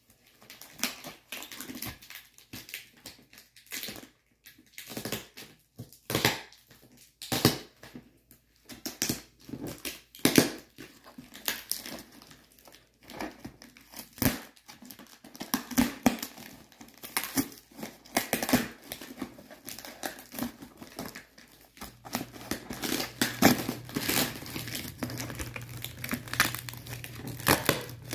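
Packing tape being picked at, peeled and torn off a cardboard shipping box, with irregular crackling and rustling of the cardboard flaps, growing busier as the box is opened.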